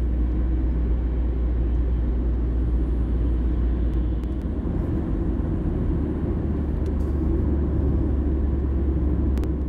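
Steady low rumble of a car driving, engine and road noise without letting up, with a couple of faint clicks near the end.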